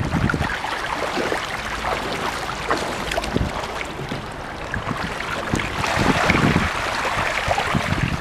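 Deep floodwater sloshing and splashing around a bicycle and the rider's legs as it is pushed through thigh-deep water, in a steady rush with many irregular small splashes; the splashing grows louder about six seconds in.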